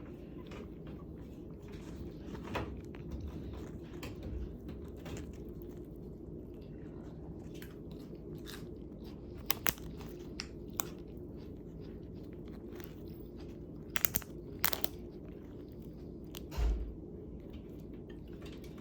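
Crunching and biting on fried chicken and its bone: irregular sharp cracks, the loudest coming in pairs about ten and fourteen seconds in, with a dull thump near the end, over a steady low hum.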